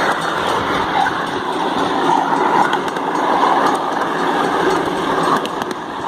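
Miniature railway train running along its track, heard from a riding car: the steady noise of the cars and wheels moving on the rails.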